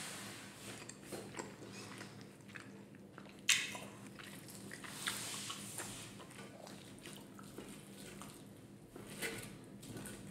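Close-miked chewing of cooked ribeye steak, then a wooden spoon pressing and scraping through the steak on a slate board, with soft wet squishes and scattered small clicks. One sharp tap comes about three and a half seconds in.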